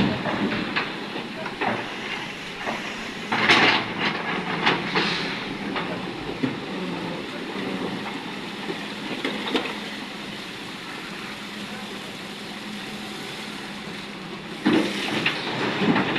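Excavator diesel engine running steadily while it loads wet stone into a tipper truck, with loud rattles of stone about three and a half seconds in, a few seconds later, and again near the end.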